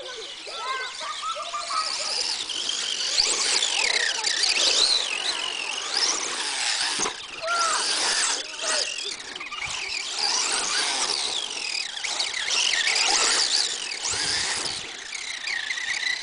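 Brushless electric motor of an Ansmann Master Smacker RC monster truck, converted to a Castle Mamba Max system on a 3S battery, whining high as it is throttled up and down over and over.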